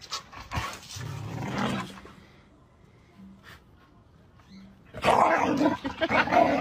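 Dogs growling and barking in rough play, quieter in the middle and loudest near the end.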